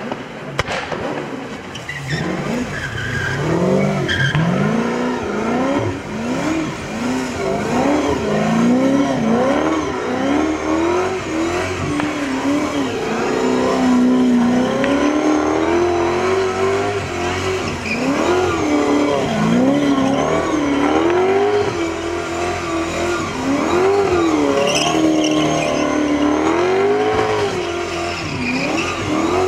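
Toyota GT86 drift car's engine revving up and down over and over as it is held in a slide, the pitch rising and falling every second or so, with its tyres skidding on the wet asphalt.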